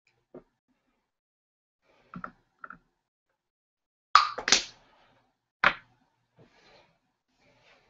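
Handling noise at a work desk: scattered short knocks and taps of objects being picked up and set down. The loudest are two quick knocks about four seconds in and another a little over a second later.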